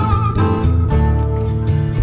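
Instrumental passage of a blues-folk song between sung lines: acoustic guitar strumming and picking over a bass line.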